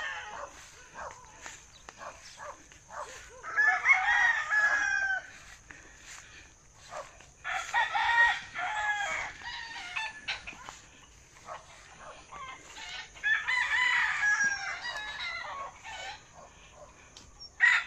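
Rooster crowing three times, several seconds apart, each crow about two seconds long.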